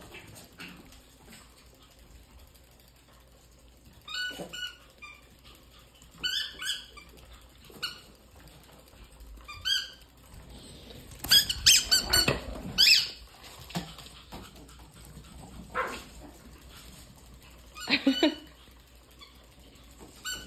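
Yorkshire terrier puppies at play giving short, high-pitched yips and squeals in scattered bursts, with the loudest cluster about halfway through.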